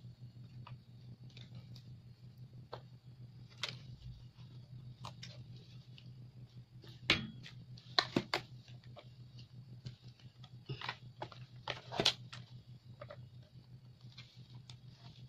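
Hard plastic clicks and knocks as the legs of a black plastic stacking rack are pushed into the corners of its perforated tiers and the parts are handled, scattered through, with the sharpest knocks in the second half. A steady low hum runs underneath.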